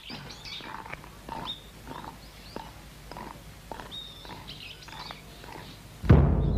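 Birds chirping in short scattered calls, with a few light knocks. Near the end a loud timpani stroke starts a burst of music.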